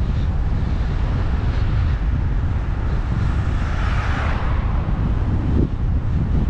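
Wind buffeting the microphone of a camera riding on a moving road bike, a steady heavy rumble. About three to four seconds in, a car passing in the opposite lane adds a swelling tyre rush that fades again.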